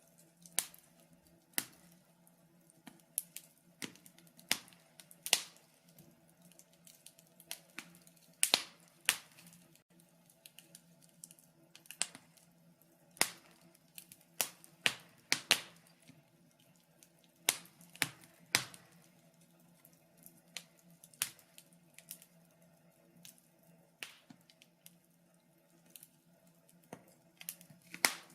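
Wood fire crackling, with sharp, irregular pops about one or two a second, some louder than others, over a faint steady low hum.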